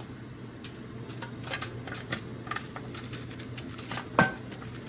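Sugar-glazed walnuts sliding out of a nonstick pan and dropping onto parchment paper in a run of light clicks, with one louder knock about four seconds in.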